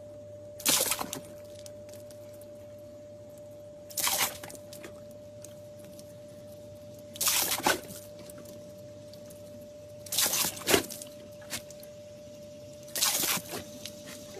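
American bully dog puffing out its cheeks and blowing air out through its lips and jowls, a short puff about every three seconds, five times.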